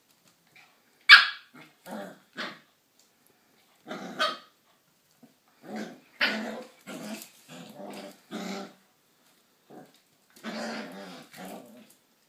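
Australian Shepherd mother and puppy play-fighting: a run of short growls and barks, the loudest a sharp bark about a second in. The growls are the mother's corrections of the rough puppy.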